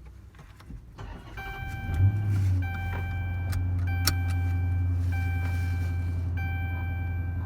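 2014 Dodge Charger R/T's 5.7 L HEMI V8 starts about two seconds in and settles into a steady idle. Over it a high-pitched tone sounds in pulses of about a second with short gaps. This is the weird noise that appears at each start-up and stops a few seconds later; its cause is unknown.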